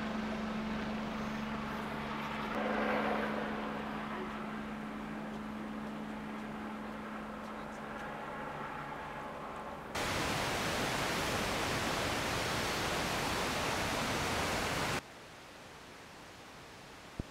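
A helicopter hovering, a steady hum holding one pitch, for about ten seconds. It then cuts suddenly to a loud even hiss for about five seconds, and after that to a fainter steady hiss.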